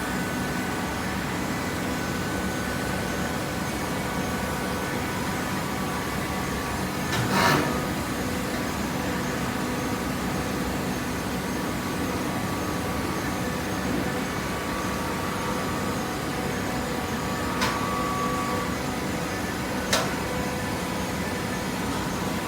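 Hydraulic paper and cardboard baler running, a steady machine hum, with a brief louder rush about seven seconds in and two sharp clicks near the end.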